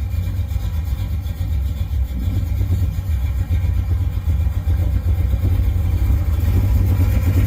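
Small-block Chevy V8 running with a low, uneven rumble, growing a little louder toward the end.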